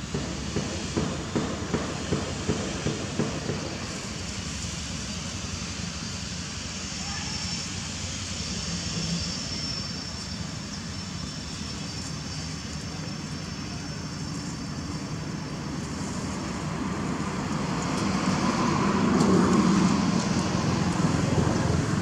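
Steady outdoor background noise like distant road traffic, with faint voices. The noise swells louder for a few seconds near the end.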